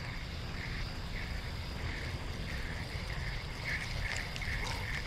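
A night-calling creature chirping steadily in short even pulses, about three a second.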